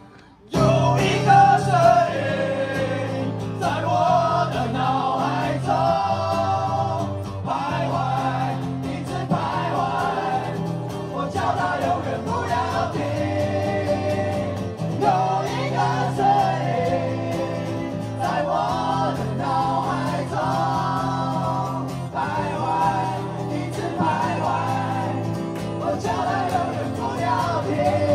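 Group of male voices singing a song together in a choral arrangement, accompanied by acoustic guitar, performed live. The voices come in after a brief break at the very start.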